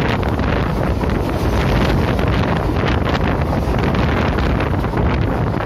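Strong wind buffeting the microphone held out of a moving passenger train, over the steady running rumble of the coach on the track.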